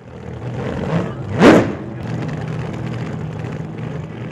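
An engine running steadily, with one quick rev about one and a half seconds in, its pitch sweeping sharply upward.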